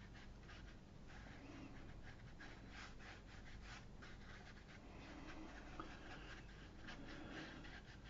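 Faint scratching and swishing of a paintbrush worked over damp watercolour paper in a run of short, irregular strokes.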